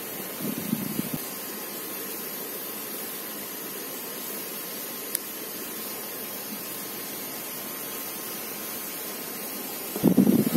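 Steady, even background hiss with no clear source, broken only by a single faint click about five seconds in.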